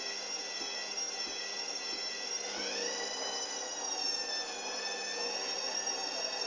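Hoover Dynamic washing machine's drum motor running with a high whine that rises in pitch about two and a half seconds in, then slowly sinks again, over faint knocks about every two-thirds of a second.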